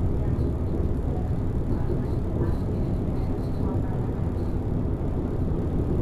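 Volvo B12BLE bus on the move, heard from the driver's side in the cabin: the DH12E straight-six diesel running with steady road and cabin rumble.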